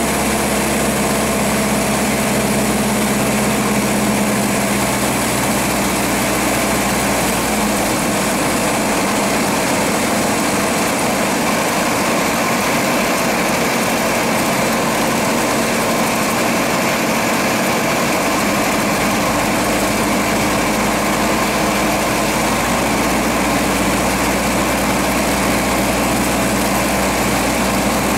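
Cessna 172RG's four-cylinder Lycoming engine and propeller droning steadily, heard inside the cabin on the landing approach. The deepest part of the drone shifts about eight seconds in and again around twenty seconds.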